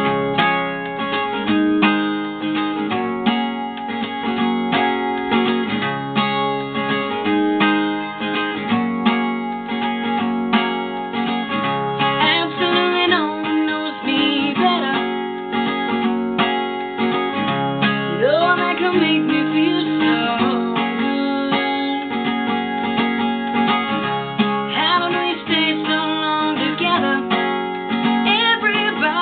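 Country-pop music led by strummed acoustic guitar chords, with a melody line sliding up and down in pitch above them at times; no lyrics are sung.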